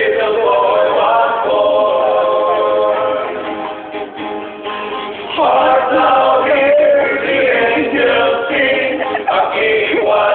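A group of mostly male voices singing together, with long held notes; the singing grows louder about halfway through.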